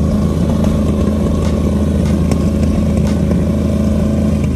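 Shelby Cobra roadster's V8 engine running loudly at a steady, slightly raised speed as the car rolls slowly away.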